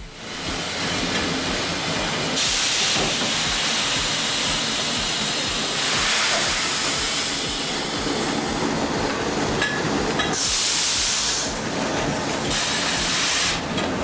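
Sawmill log-debarking machinery running loudly and steadily, with four sharp bursts of hissing about a second long each.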